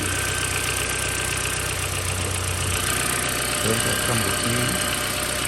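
Car engine idling steadily while its fuel injector is being checked for pulses from the engine computer.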